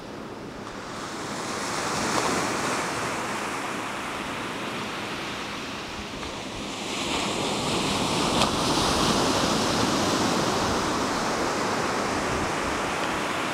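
Small waves breaking and washing up onto a sandy beach. The surf swells about two seconds in, then again and louder from about seven seconds on, with a sharp break near the middle of that second surge.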